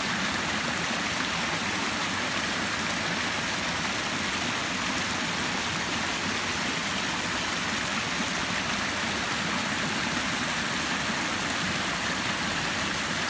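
Rain-swollen woodland creek rushing and splashing over a small drop, a steady, even rush of water. The creek is swollen with runoff from a downpour of over three inches.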